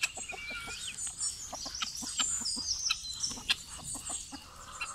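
Free-range chickens clucking, with many short, high bird chirps over them.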